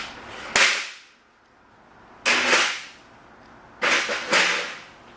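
Sharp clacks with short hissing tails: one about half a second in, one after two seconds, and two close together near four seconds.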